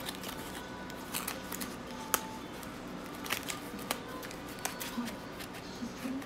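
Small cardboard box holding spare fluorescent bulbs being handled and closed by hand: scattered clicks and scrapes of cardboard, with one sharp click about two seconds in.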